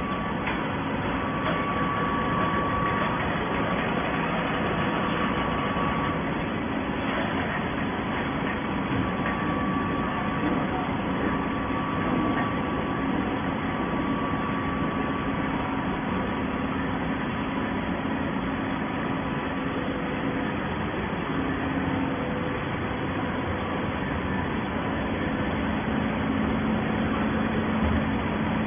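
Plastic bottle baler machinery running steadily: a constant mechanical hum and noise with a few steady tones, without pauses or sudden changes.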